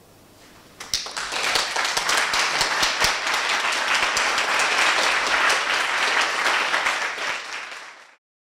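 Audience applauding: dense, irregular clapping that starts suddenly about a second in, holds steady, then fades and cuts off near the end.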